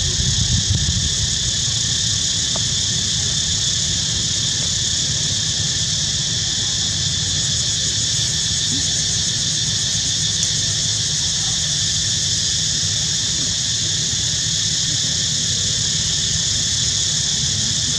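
A steady, high-pitched chorus of insects droning without a break, over a low rumble that eases after the first second.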